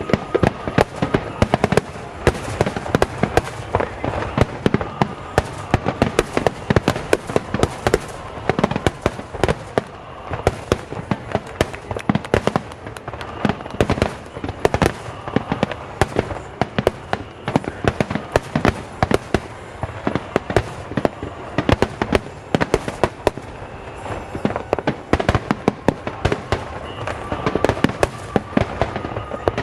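Aerial fireworks bursting in a dense, continuous barrage, many bangs every second.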